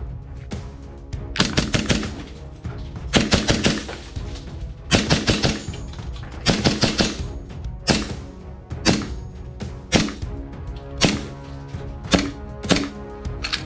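Airsoft gun firing: four quick bursts of rapid shots, then about six single shots spaced a second or so apart. Background music plays underneath.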